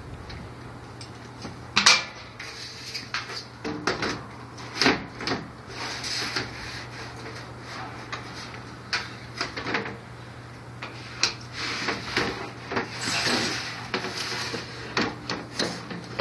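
Dark glass panel being worked into a metal balcony railing frame: irregular knocks, clicks and scraping of glass and metal against each other, over a steady low hum.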